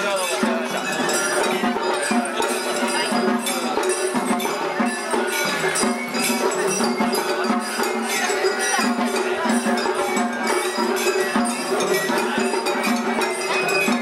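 Japanese festival hayashi music from a dashi float: a metal hand gong clangs in rapid strikes over drums.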